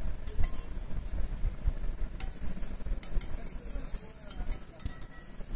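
Sliced onions frying in oil on a large flat iron tawa, with a few sharp scrapes and knocks of a flat metal spatula on the griddle, over a steady low rumble.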